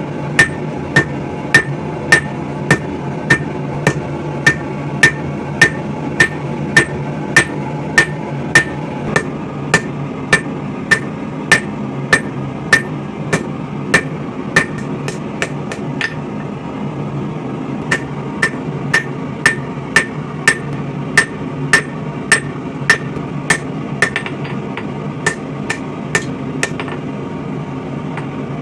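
Hand hammer forging steel on an anvil, about two to three blows a second, many of them ringing. The blows break off for about a second and a half just past the middle, then resume, over a steady low hum.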